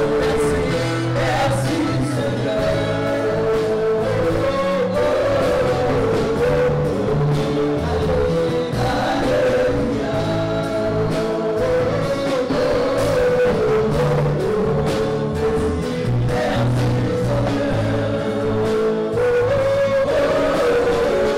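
Congolese gospel music: a choir singing over a band with bass and a steady beat.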